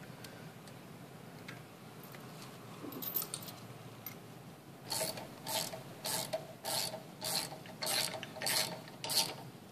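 Socket ratchet wrench tightening nuts on the studs of the aluminum caliper plate (bearing retainer). After a few faint clicks, it gives eight even ratcheting strokes about 0.6 s apart, starting about halfway through.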